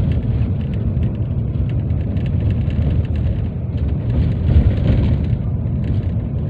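Steady low rumble of tyre and wind noise, heard from inside a road vehicle moving at speed.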